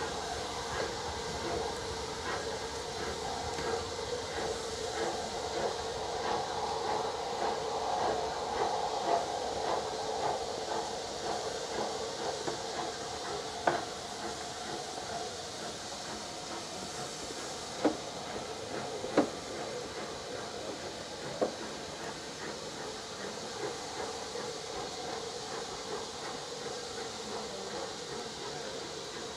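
Steam locomotives standing in a station, a steady hiss of steam over a steady hum. Four sharp metallic clanks sound in the middle stretch, two of them close together.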